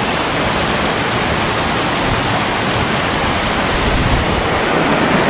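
Creek water rushing steadily over rocks close by, an even, loud hiss of running water.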